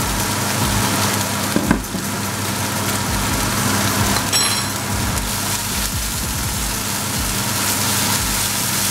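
Sliced onions and spring onions sizzling steadily in hot oil in a non-stick frying pan, with a wooden spoon stirring them now and then.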